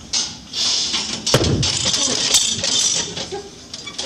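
A loud thud a little over a second in, amid rustling and handling noise in a weightlifting gym.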